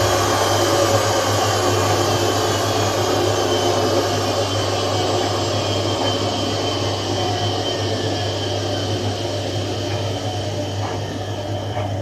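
Hotpoint WMA 9 washing machine's newly replaced motor driving the drum fast: a steady hum under a whine that slowly falls in pitch as the noise eases. A few light clicks come near the end.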